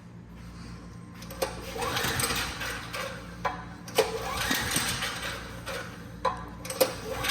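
Generac XT8000EFI generator engine cranking on its electric starter in about three short bursts, each begun with a sharp click, without catching: a no-start.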